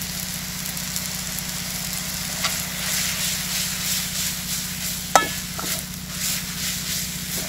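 A spatula stir-frying thin vermicelli noodles in a wok, scraping and tossing them over a steady sizzle and a low hum. A sharp ringing clang of the spatula against the wok comes about five seconds in, then a smaller knock.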